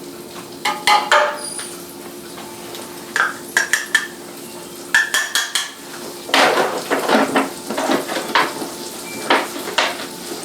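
A metal utensil clinking, knocking and scraping against a sauté pan and dishes in irregular clusters, denser in the second half, as chopped garlic goes into the pan. A faint steady hum runs underneath.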